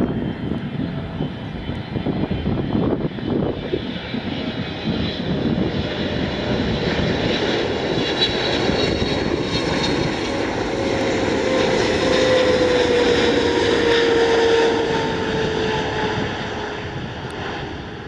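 Boeing 777-300ER's twin GE90 turbofan engines on final approach to land: a steady jet rumble with a high fan whine, growing louder to its loudest about two-thirds of the way through and then easing off, while a lower tone slides down in pitch.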